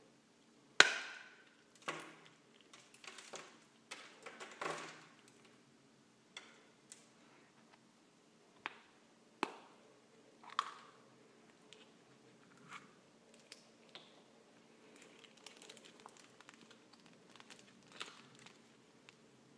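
The milk chocolate shell of a Kinder Surprise egg cracks sharply under the thumbs about a second in, then crunches and snaps as it is broken apart. Several sharp clicks follow as the plastic toy capsule is handled and snapped open, and near the end a paper sticker sheet crinkles as it is unfolded.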